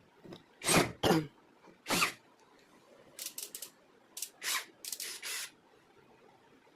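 A string of short knocks, clicks and scrapes from tools and machine parts being handled: three louder knocks in the first two seconds, then a quick run of lighter clicks and scrapes.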